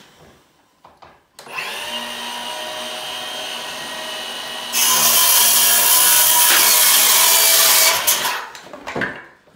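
Cordless circular saw trimming the end of an interior door: the motor spins up and runs free for about three seconds, then grows much louder as the blade cuts through the door for about three seconds, and winds down near the end.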